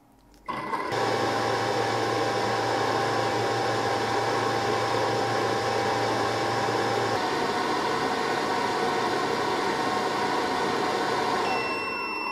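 Creality UW-01 wash and cure station's lid fans running in air-drying mode: a steady rush of blown air with a low motor hum. It starts about half a second in, and the hum shifts slightly in pitch about seven seconds in.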